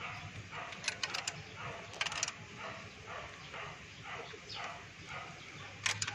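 Sharp metal clinks of a ring wrench and screwdriver on a rocker-arm adjusting screw and locknut during valve clearance adjustment on a Mitsubishi 4G13 engine. The clinks come about one and two seconds in and again near the end. A string of short animal calls, about two a second, sounds in the background.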